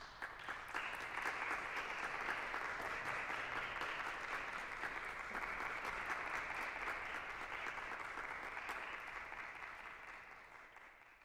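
Audience applauding: many hands clapping, starting suddenly and dying away near the end.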